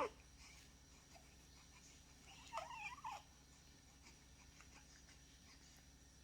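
Four-week-old baby making a short squeaky, wavering fussing sound about two and a half seconds in that lasts about a second, after a brief falling squeak at the very start.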